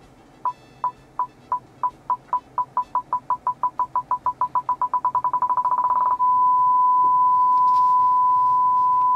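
BMW 5 Series original parking-sensor warning tone while reversing toward an obstacle: a single-pitched beep that repeats faster and faster, then turns into one continuous tone about six seconds in, the signal that the car is very close. The tone cuts off sharply at the end.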